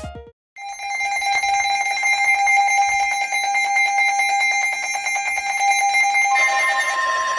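NOAA Weather Radio emergency alert tones: a loud electronic alarm starting about half a second in, switching about six seconds in to a different steady alarm tone, signalling the start of a severe thunderstorm warning broadcast.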